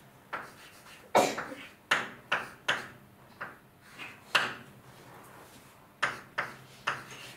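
Writing on a lecture board: about a dozen sharp taps and short strokes, irregularly spaced, with a pause of a second or so in the middle, as a formula is written out.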